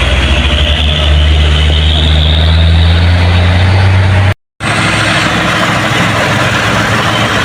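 Truck engine running with a steady low hum. About four seconds in it cuts out abruptly for a split second and comes back as a different, noisier engine sound, a spliced change to another vehicle.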